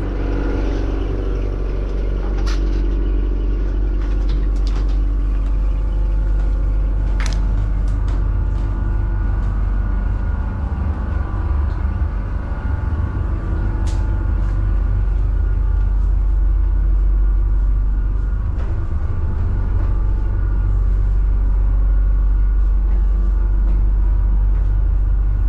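A loud, steady low mechanical rumble, like a motor or engine running, with a few sharp clicks over it.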